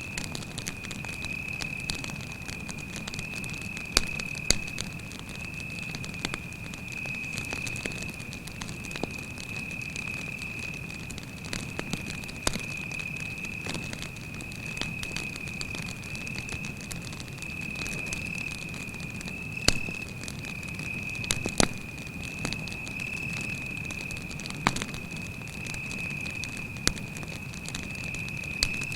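Wood campfire crackling, with scattered sharp pops and a low steady rush of flame, under a cricket's continuous high trill.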